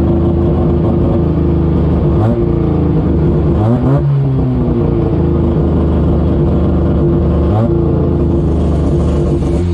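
Drag race car's engine running steadily, heard from inside the cockpit, with a few short revs: one about two seconds in, a longer one around four seconds, and another near eight seconds.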